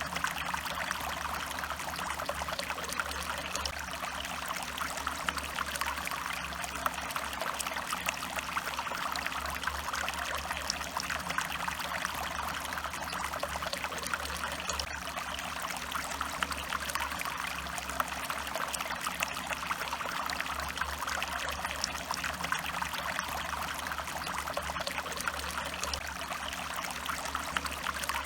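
Stream water trickling and splashing steadily over rocks, with fine crackling splashes and no change in flow.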